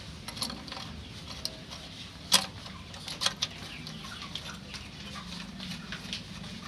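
Sharp metallic clicks and taps from fingers turning a nut onto a connecting-rod big-end bolt inside a Dongfeng R175 diesel crankcase, while the rod bearing is being fitted. The loudest click comes a little past two seconds in, with two more close together about a second later, over a low steady hum.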